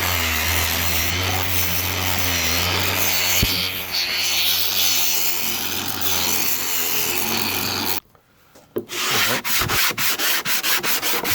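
Grinder running steadily against fiberglass filler on a boat rudder, skimming the surface, then cutting off abruptly about eight seconds in. After a short silence, a 60-grit sanding block scrapes back and forth over the fiberglass in quick, uneven strokes.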